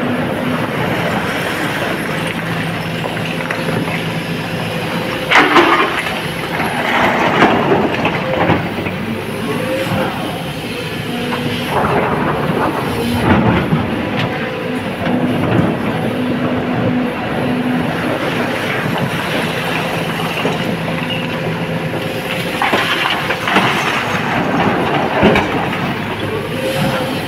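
Sany hydraulic excavator running under load, its engine and hydraulics giving a steady drone with a hum that comes and goes as the arm works. The bucket scrapes and scoops broken rock out of a flooded pit, with several loud clatters of rock, the loudest about five seconds in.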